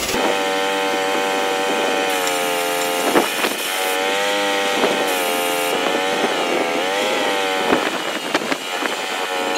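Small petrol engine of a portable grain auger running steadily, its pitch wavering up and down, with a couple of sharp knocks.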